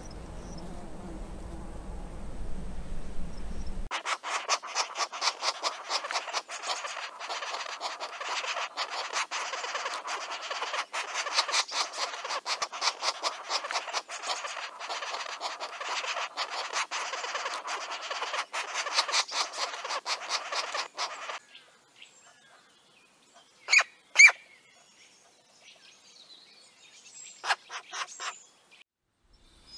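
Nestling birds begging: a dense, rapid rasping chatter that starts about four seconds in, runs for about seventeen seconds, then stops. A few short, sharp calls follow, two close together and then another pair a few seconds later. A faint low rumble comes before the chatter.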